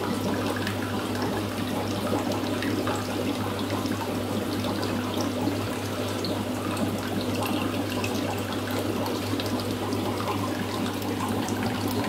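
Aquarium water circulating: a steady trickling, splashing water noise with fine crackles, over a steady low hum from a pump.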